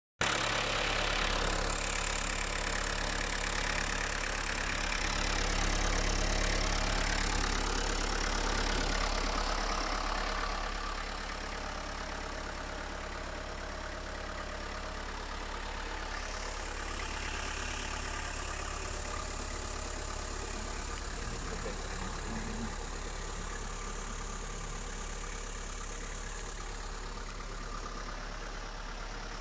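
Fiat Fiorino van's engine idling steadily. Heard close at the open engine bay at first, it drops somewhat in level after about ten seconds as the listening point moves back along the van's side.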